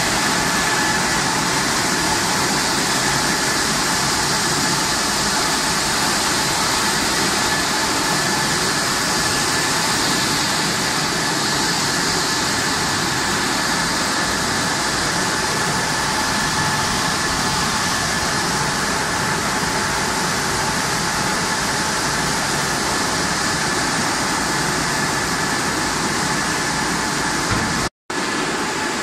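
French fries production line machinery running steadily: motors and belt conveyors with a constant whine over a rushing hiss. The sound cuts out for an instant near the end.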